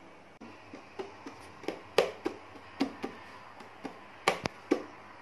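Hands tapping on the bottom of an upturned heart-shaped metal cake tin, about a dozen short knocks at uneven spacing, to loosen the baked cake onto a plate.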